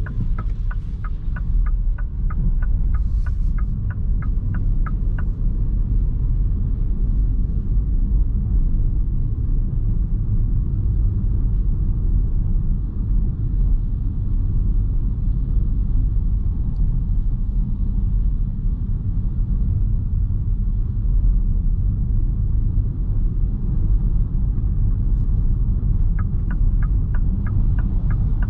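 Steady low road and tyre rumble inside the cabin of a moving 2021 MINI Cooper S E Countryman plug-in hybrid. A regular ticking, about three clicks a second, like a turn-signal indicator, runs for the first five seconds and starts again near the end.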